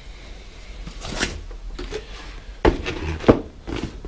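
Handling noises: a rustle about a second in, then a few sharp wooden knocks and thumps, like things being moved or set down.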